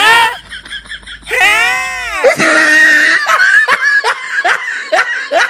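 A group of men laughing and yelling together: a long drawn-out shout about a second and a half in, then rapid, evenly repeated bursts of laughter.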